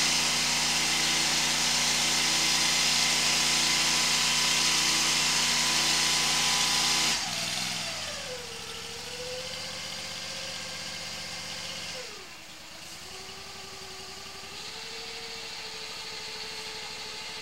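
Hydro-jetter's engine-driven high-pressure pump running steadily and loudly with a high hiss, then dropping abruptly about seven seconds in to a quieter running with a wavering pitch that dips again near twelve seconds.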